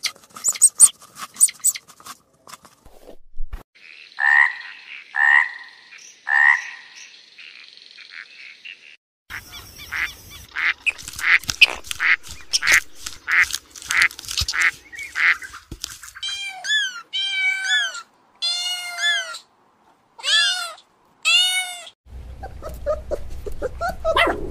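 A string of short animal-call clips. House sparrows chirp for the first few seconds, then three separate calls sound about a second apart. A flock of flamingos then calls in quick succession, followed by several short runs of calls that rise and fall in pitch, and a steady low hum near the end.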